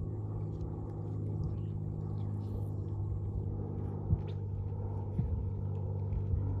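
An engine running steadily with a low, even hum, with a few light clicks about four, five and six seconds in.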